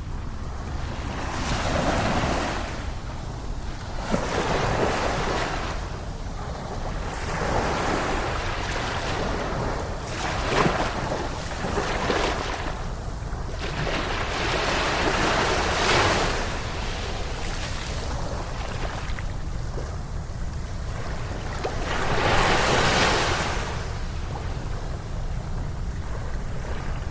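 Ocean surf: waves breaking and washing up the shore, the rush of water swelling and fading every few seconds, over a steady low rumble.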